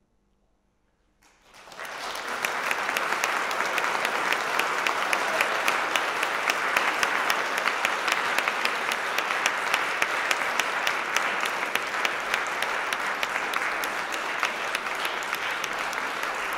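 The last piano chord fades into near silence. About a second in, an audience breaks into applause, which builds quickly and then continues steadily.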